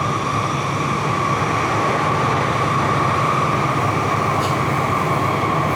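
Tokyu 3020 series electric train running at steady speed, heard from inside the car: an even rumble of wheels on rail with a steady high whine over it.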